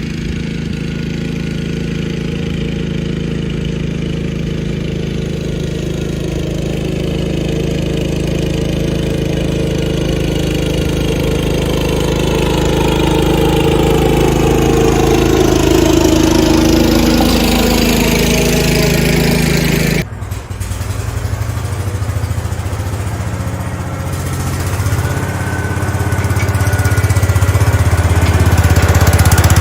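1970 Cub Cadet 127 garden tractor's single-cylinder Kohler engine running steadily, its sound shifting in pitch and changing abruptly about twenty seconds in.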